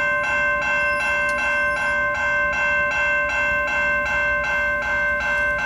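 Railroad crossing warning bells ringing steadily, about four strikes a second, with a lasting ring between strikes. The crossing is activated, warning of an approaching train as the gates lower.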